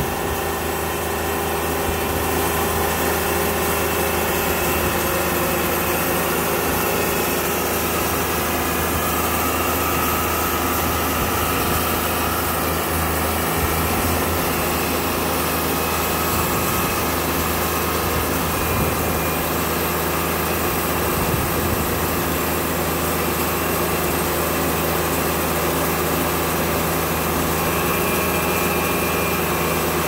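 Wood-Mizer portable band sawmill's engine running steadily at an even speed, with no change in pitch or level.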